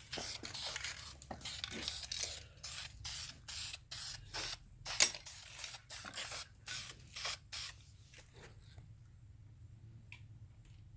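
Short bursts of spraying in quick succession, with a sharper, louder burst about five seconds in; the spraying stops about eight seconds in.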